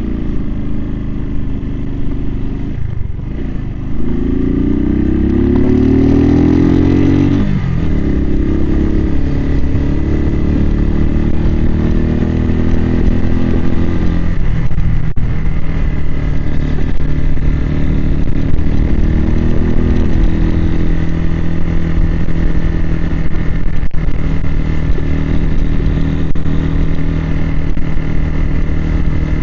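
Suzuki TU250X's single-cylinder engine under way, heard from the rider's helmet. The pitch climbs about four seconds in, drops at a gear change, climbs again and drops once more near the middle, then holds steady at cruising speed.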